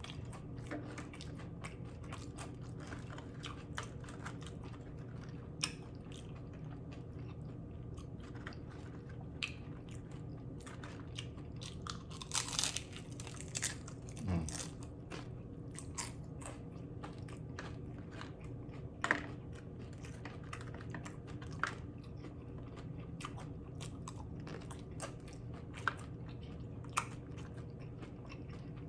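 Close-up chewing and crunching of loaded steak nachos, with the tortilla chips crackling between the teeth in scattered sharp crunches over a steady low hum.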